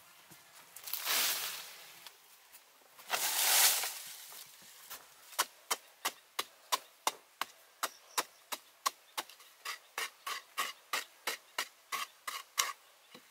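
Loose sandy soil scooped up and thrown out of a pit twice, each a brief swoosh, the second the loudest. Then a hand tool strikes and scrapes into the packed sandy pit wall, quick sharp hits about three a second that stop just before the end.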